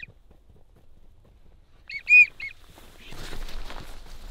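A three-note wigeon whistle about two seconds in, a short note, a long note and a short note, as wigeon are called in to the decoys. After it a soft rustling noise builds up.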